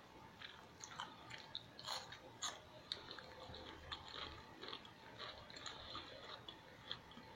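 A person chewing a mouthful of dirty rice, with faint wet mouth smacks and clicks at irregular intervals.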